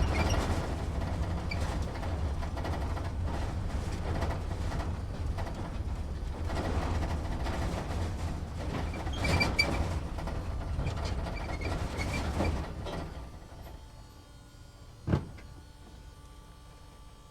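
Inside a truck's cab on a slow drive: a steady low rumble of engine and road, with rattles and clicks as the cab shakes. About thirteen seconds in the rumble dies away and it goes much quieter, broken by a single knock a couple of seconds later.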